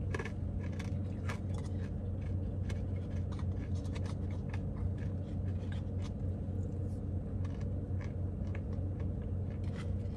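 A person chewing a mouthful of vanilla soft serve with crunchy praline almond pieces: scattered small crunches and clicks over a steady low hum in the car cabin.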